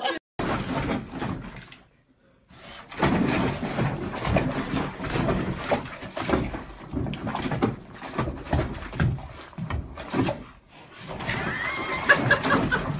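Dog splashing and thrashing in a foam-filled bathtub, with water sloshing and splashing in quick, uneven strokes, and a few high squeals near the end.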